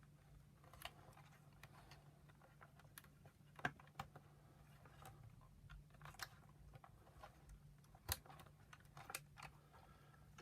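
Scattered light clicks and taps of plastic vacuum-nozzle parts being handled and fitted together by hand, quiet, with a faint steady low hum underneath.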